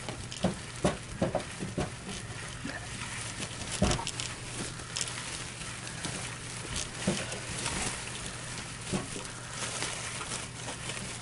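Foil-jacketed flexible return air duct being handled and pressed onto the sheet-metal collar of a return air box: irregular crinkling and rustling with scattered knocks, one louder knock about four seconds in, over a steady low hum.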